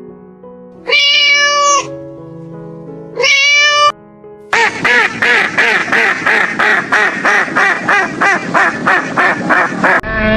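Two drawn-out cat meows, then a fast run of short repeated animal calls, about three a second, over soft background music.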